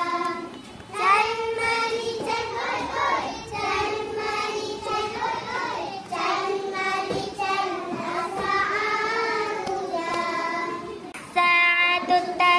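A high, child-like voice singing a children's song for learning the hours of the clock in Arabic, in long held phrases. A louder phrase comes in near the end.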